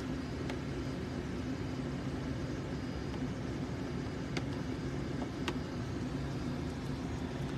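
Steady low hum inside the cabin of a parked Toyota Vellfire minivan with the climate control running, with a few faint clicks.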